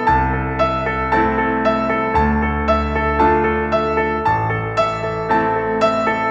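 Background music: gentle piano playing a repeating pattern of notes, about two a second, over held bass chords that change every couple of seconds.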